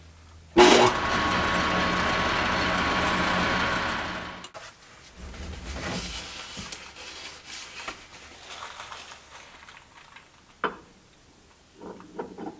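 Metal lathe running, with a loud steady noise from about half a second in until about four seconds in, when the machine winds down. Afterwards soft rubbing of a paper towel on the steel part, and near the end a few light metal clicks as the back plate is tried in the freshly cut recess.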